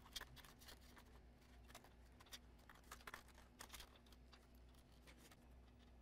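Near silence with faint, scattered small clicks and taps: hands handling small laptop parts and connectors during reassembly, over a low steady hum.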